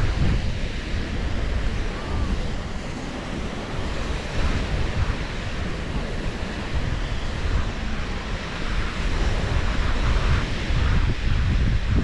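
Wind buffeting the microphone, heaviest in the low end, over the wash of waves on a sandy beach.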